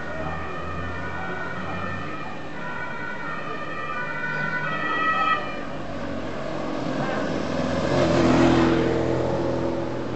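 Siren sounding in steady tones that step up and down in pitch for about five seconds, then a motor vehicle passing close, loudest about eight seconds in.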